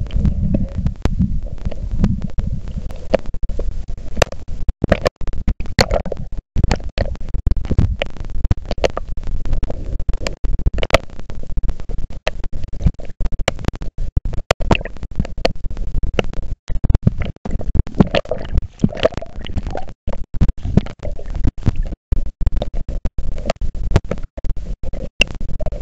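Water buffeting a camera's waterproof housing just under the surface: a low rumble with dense crackling clicks, the sound cutting out briefly now and then.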